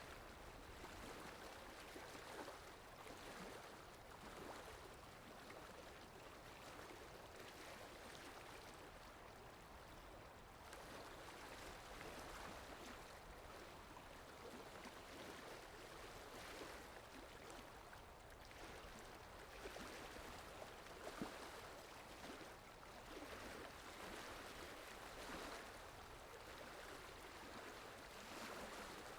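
Faint water sound effect: a steady wash of flowing, lapping water that swells and eases gently every few seconds.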